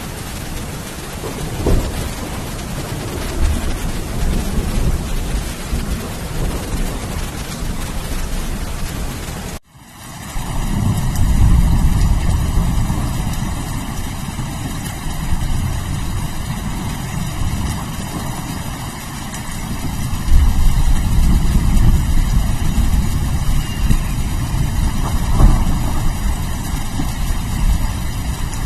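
Steady rain with low rolling thunder rumbles. About ten seconds in, the sound cuts out for an instant and comes back as a different recording with a heavier low rumble, which swells again about twenty seconds in.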